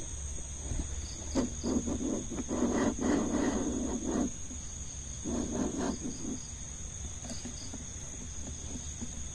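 Two muffled moaning cries: a long one beginning about a second in and a shorter one about five seconds in. They sound like someone in pain calling for help. Crickets chirr steadily throughout.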